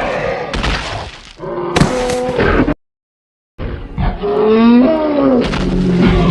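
Two made-up Centrosaurus calls, sound-effect roars of about three seconds each, with a second of silence between them; the second call wavers up and down in pitch.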